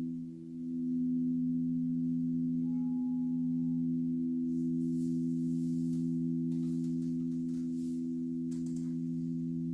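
Several alchemy crystal singing bowls ringing together, a steady blend of pure low tones that dips briefly near the start and swells back up.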